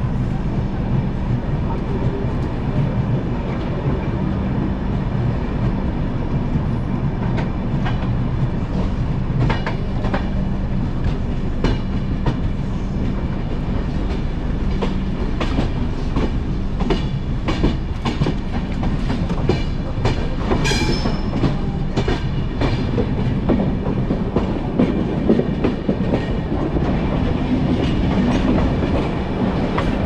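Passenger-coach wheels of the 11071 Kamayani Express running over rail joints and points as the train pulls out of the station: a steady rumble with irregular clacks that come thick and fast from about a quarter of the way in, and a brief high screech about two-thirds through.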